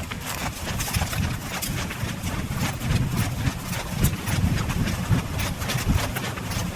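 Footsteps crunching over the ground at a walking pace, many short irregular steps, with wind buffeting the microphone as a low rumble.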